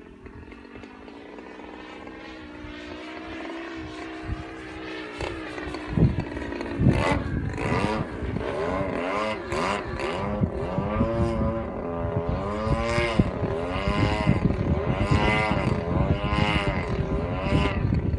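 Small two-stroke gas engine of a 30cc Factor radio-controlled aerobatic plane, faint at first and growing louder, its pitch swooping up and down over and over from about six seconds in. Wind buffets the microphone with low thumps.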